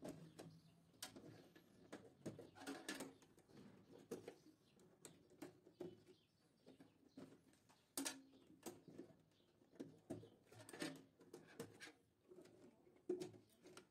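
Faint, irregular clicks and rustles of insulated wires being handled and pushed into slotted plastic wiring ducts in an electrical panel.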